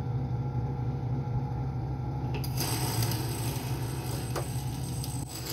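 Benchtop drill press motor running with a steady hum; about two and a half seconds in, the bit bites into an iPhone 5s's Touch ID home button and a grinding, scraping noise starts and keeps going as it cuts through.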